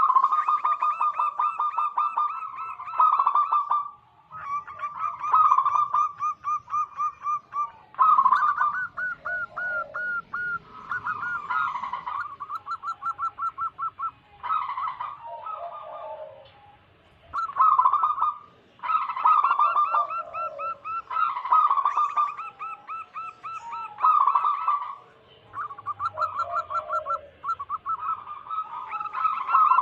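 Zebra doves (perkutut) calling: bouts of rapid, repeated staccato cooing notes lasting a few seconds each, separated by short pauses, with the calls of more than one bird overlapping at times.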